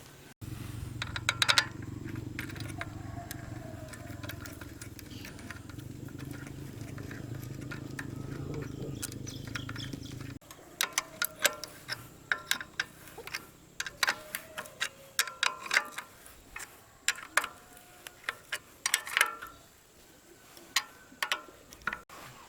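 A steady low machine hum with a few clicks, cut off abruptly about ten seconds in. It is followed by a string of sharp metallic clinks and taps of small metal parts being handled.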